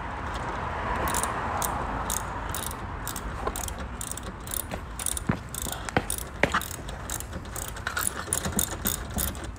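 Socket ratchet wrench clicking steadily, about two to three clicks a second, as a bolt on the car's underside is turned.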